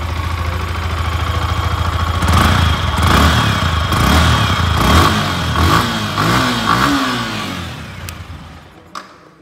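Yamaha R15 V4's 155 cc single-cylinder four-stroke engine heard at the exhaust, idling and then revved in several quick rising and falling blips from about two seconds in. It settles and is switched off near the end, with a click.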